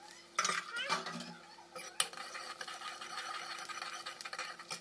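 Metal ladle clinking and scraping against a black kadhai as besan-and-bottle-gourd kofta fritters are turned in hot oil, a few sharp knocks in the first two seconds, the loudest about two seconds in. The oil keeps up a steady sizzle.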